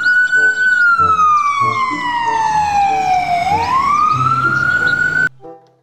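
Ambulance siren sounding a slow wail: the tone sweeps up, sinks slowly for about three seconds, climbs again, then cuts off suddenly near the end.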